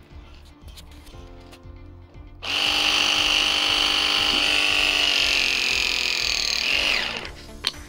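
Cordless pipe press tool with 18 mm jaws crimping a copper press fitting. Its motor starts suddenly about two and a half seconds in, runs loud and steady for about four seconds, then winds down with a falling pitch. Background music plays underneath.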